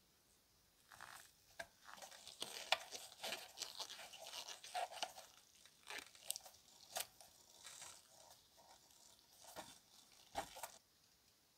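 A small screw being driven with a hand precision screwdriver to fasten a sheet-metal foot bracket to the hotplate's metal housing: quiet scratchy scraping of metal on metal, then a few sharp clicks and taps as the parts are handled.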